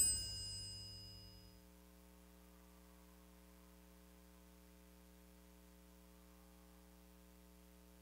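The last struck note of the percussion music rings out with a metallic ring and fades away over about a second and a half. Near silence follows, with only a faint steady hum.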